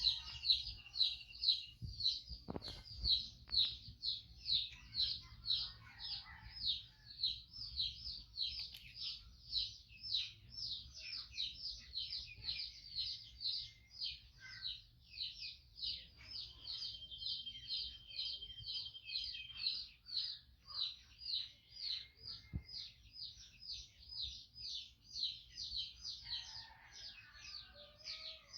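A bird's short chirp repeated steadily, about two to three times a second, over a low steady hum, with a couple of faint knocks.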